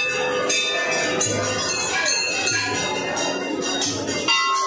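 Brass temple bells struck over and over by devotees, many strikes overlapping with their ringing.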